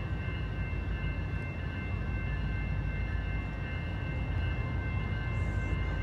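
A train approaching in the distance, heard as a steady low rumble, with several steady high ringing tones over it.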